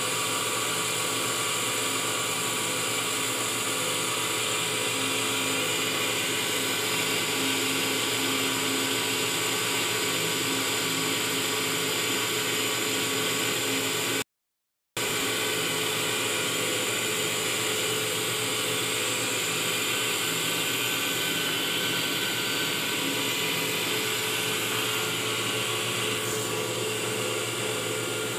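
Milkonn electric cream separator running steadily, its motor and spinning bowl making a constant mechanical hum and whine while it separates warmed milk into cream and skim milk. The sound cuts out for under a second about halfway through.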